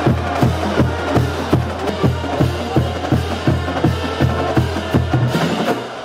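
Background music with a steady beat: a deep, held bass line under drum hits about four times a second.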